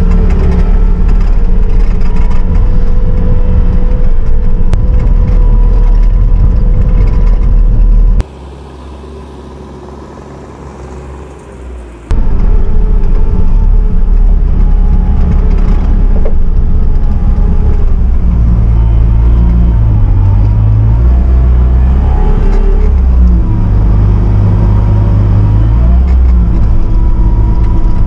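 Bobcat T650 compact track loader's diesel engine running under work, heard from inside the open-mesh cab, its pitch rising and falling as the machine drives and moves the loaded bucket. About eight seconds in the sound drops suddenly to a much lower level for about four seconds, then comes back just as suddenly.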